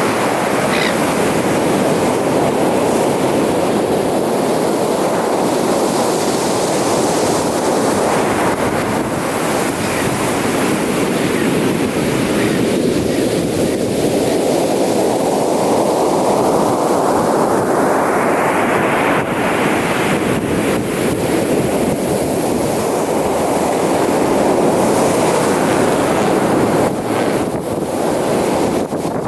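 Ocean surf breaking and washing up a beach: a steady, continuous rush of waves.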